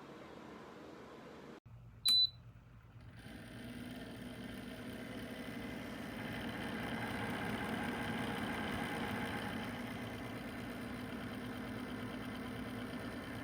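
Dreo 1500 W ceramic space heater giving one short, sharp electronic beep, then its fan starting up as a steady whir that builds over a few seconds and settles.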